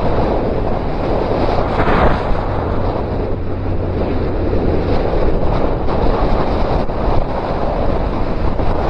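Heavy wind rushing and buffeting over the microphone on a moving motorcycle, with the Suzuki Bandit 1250's inline-four engine droning low and steady underneath.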